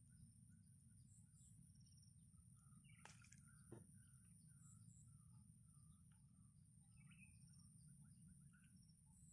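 Near silence: faint scattered bird chirps over a low steady background rumble, with a couple of faint clicks a little after three seconds in.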